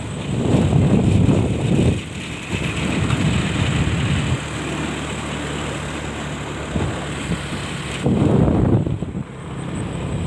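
Wind buffeting the microphone in gusts, over the steady hum of an engine running.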